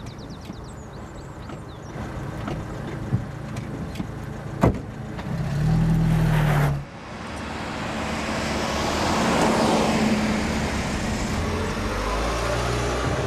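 A car driving along a street: its engine hums under road noise, with a few bird chirps near the start. A louder engine note breaks off abruptly about halfway through. After that a broad rush of engine and road noise swells and holds.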